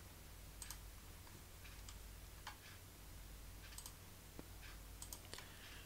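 Faint computer mouse clicks, about eight, spaced irregularly, over quiet room tone with a steady low hum.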